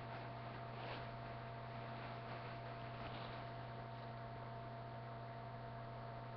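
Steady low electrical hum with a constant hiss and a faint higher whine, the noise floor of a webcam recording. A faint brief rustle about a second in.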